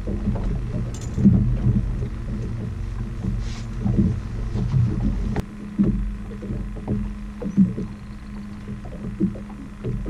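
A boat motor runs steadily while the boat trolls, with irregular low thumps over it and a sharp click about five seconds in.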